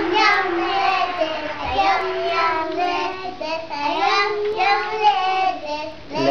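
Small boys singing together in high children's voices, with long held notes.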